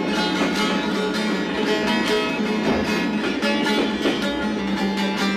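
Bağlama (Turkish long-necked saz) played live: a quick plucked melody over a steady held drone note, in a Turkish folk style.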